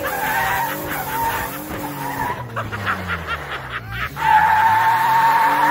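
Pickup truck sliding in circles on a wet lot, its engine revving up and down while the rear tyres spin and squeal. The revs dip about four seconds in and climb again, and a loud, wavering tyre squeal takes over from there.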